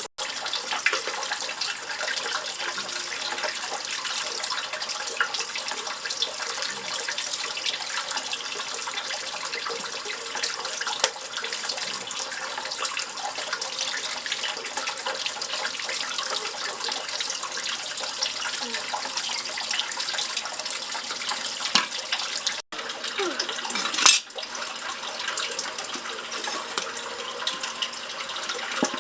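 Steady running water with a fine crackling splash. It breaks off briefly twice about three-quarters of the way through, with a short louder rush between the breaks.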